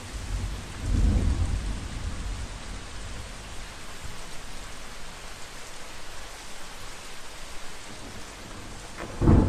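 Heavy rain falling steadily, with a low rumble of thunder about a second in and a sudden loud thunderclap near the end, the loudest sound.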